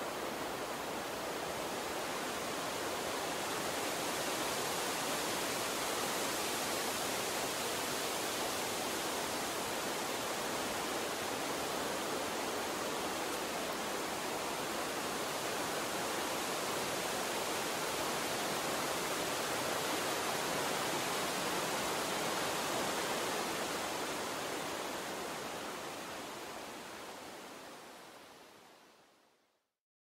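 A steady, even rushing noise that fades out over the last few seconds.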